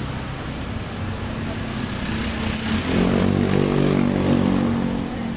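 Fuel-injected motorcycle engine running, revved up about three seconds in and easing back down near the end.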